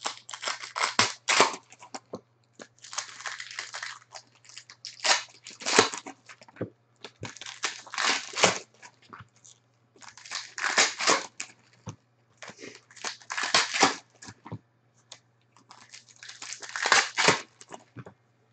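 Foil trading card pack wrappers crinkling and tearing open in the hands, in crackly bursts about every two seconds.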